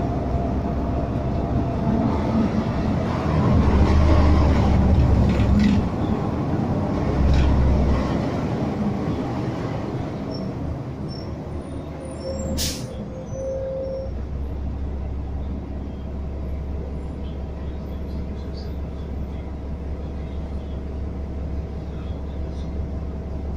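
Engine rumble and road noise of a moving vehicle heard from inside it, with city traffic around. The low rumble is heavier for the first eight or so seconds, then settles to a steady drone; a sharp click comes about twelve seconds in, followed by a short steady tone.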